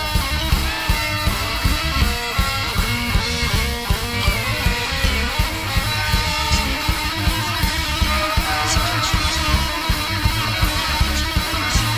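Free-jazz noise-rock band playing, with electric guitars over bass and drums at a steady, driving beat.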